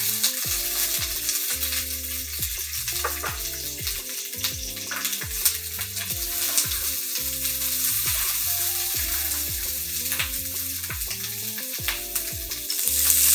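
Green bell pepper pieces sizzling in hot oil in a cast-iron skillet as they are tipped in and pushed around with a wooden spatula, with short clicks and scrapes scattered through the sizzle. Soft background music plays underneath.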